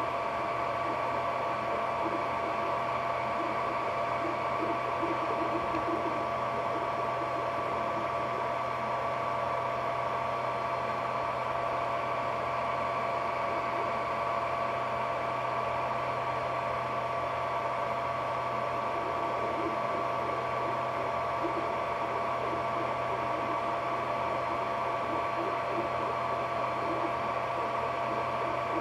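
Ender 3D printer running a print: a steady whine of fans and motors over a low hum, with short, faint buzzing moves from the stepper motors now and then.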